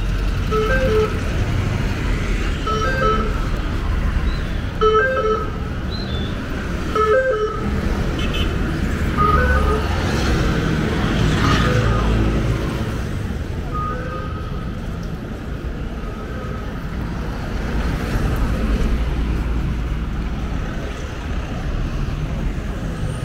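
Busy city street traffic: a steady rumble of engines and tyres, with short horn toots every second or two, mostly in the first half.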